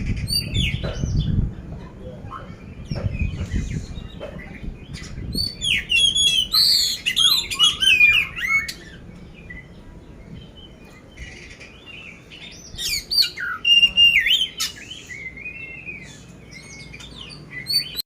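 Oriental magpie-robin (kacer poci) singing a fast, varied song of whistles and coarse chattering notes, in two long bursts about five and twelve seconds in. A low rumble sits under the first few seconds.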